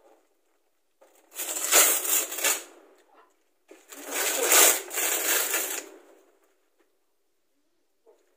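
Gift-wrapping paper being torn and crumpled off a box, in two long noisy rips about a second and a half apart.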